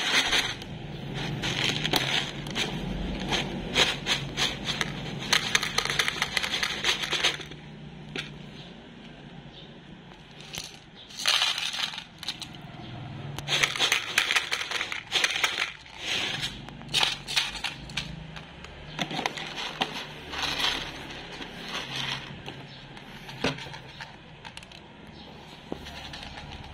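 Dry cat kibble rattling into a clear plastic tub for the first seven seconds or so, loud and dense. Then a cat crunching the kibble from the tub, with scattered clicks of pellets against the plastic.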